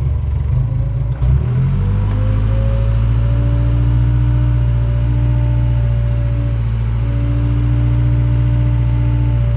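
Case 580K backhoe's diesel engine running; about a second and a half in its pitch climbs as it revs up, then it holds steady at high revs.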